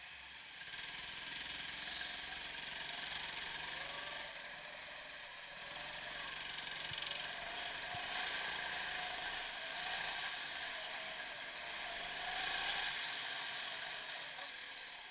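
Indoor go-kart pulling away and driving laps, heard from on board: a mechanical whir from the kart's drive that rises and falls in pitch with speed, over a steady hiss.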